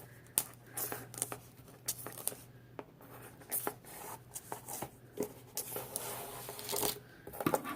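Cardboard and packaging being handled and pried open: scattered scraping, rustling and tapping, with a faint steady low hum underneath.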